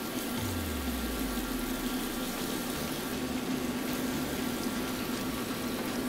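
Raw shrimp sizzling in hot oil in a stainless steel skillet, a steady frying hiss, with a steady low hum underneath.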